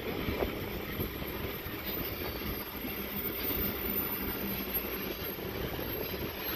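Freight train of covered hopper wagons rolling past: a steady rumble of steel wheels on the rails with a dense, rapid clatter.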